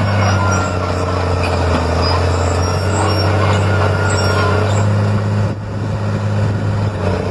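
Komatsu D50 crawler dozer's diesel engine running with a steady, deep rumble. The engine eases off briefly about five and a half seconds in.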